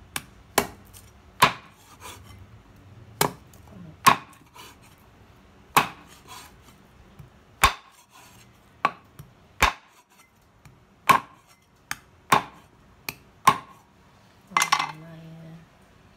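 Cleaver chopping a raw pork tail into rounds on a wooden chopping board: about fifteen separate sharp chops at uneven intervals, each blade strike going through to the board. Near the end there is a quick cluster of blows.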